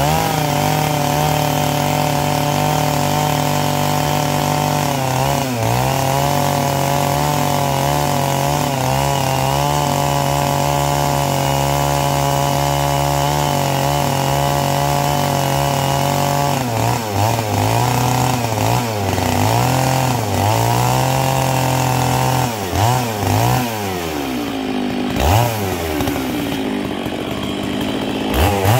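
Stihl 660 two-stroke chainsaw cutting into a paulownia stump at a steady high engine speed. After about 16 seconds the engine speed starts rising and falling as the throttle is worked, drops sharply a few times toward the end, and revs up again at the very end.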